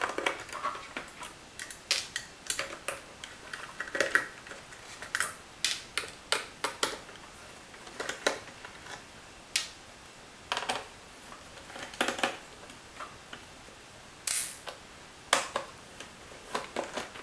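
Scattered sharp clicks and light taps of a small screwdriver unscrewing the screws that hold down the main board inside a Garmin GPSMAP 498, with the plastic case and circuit board being handled.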